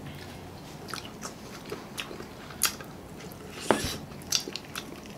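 Mouth sounds of eating spicy sauce-coated breaded fried chicken up close: biting and chewing, with irregular wet smacks and clicks, a few louder ones past the middle.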